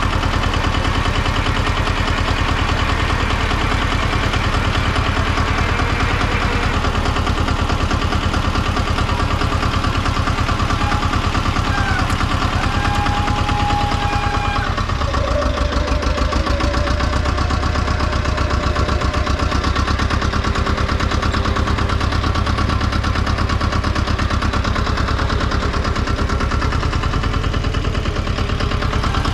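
Tomo Vinković TV-731 tractor's diesel engine running steadily with a rapid, even knock. About halfway through the low engine note shifts, and a few faint squealing tones come and go around the middle.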